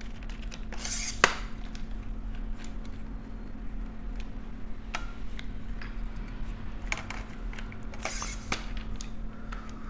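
Small clicks and brief scrapes of a telescope tripod's leg-lock screws being tightened and its legs handled, with one sharper click about a second in, over a steady low hum.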